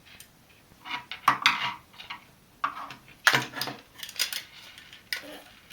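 Irregular clicks and clatter of a screwdriver and small screws against the plastic housing of a bicycle siren-and-light unit as it is screwed shut, in short bursts, loudest about a second and a half in and again just past three seconds.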